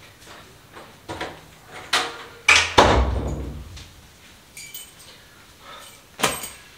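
A room door being shut: a few latch clicks, then a heavy double thud with a short rumble as the door closes, about two and a half seconds in. Light jingling follows, then one sharp knock near the end.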